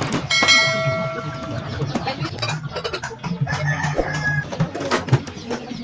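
A metal piece of a chicken cage struck, ringing for about a second, then clattering and knocking as the cage is handled. Chickens call in the background.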